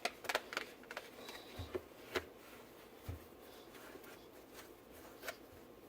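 Faint handling sounds of a shoe tree being fitted into a sneaker: scattered light clicks and taps, most of them in the first two seconds, then only a few.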